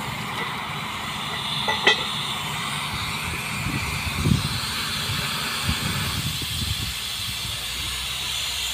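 Steady hissing spray of water and mud blowing up out of a tube well's borehole as it is drilled, over the low running of the drilling rig's engine. A sharp metallic clank comes about two seconds in.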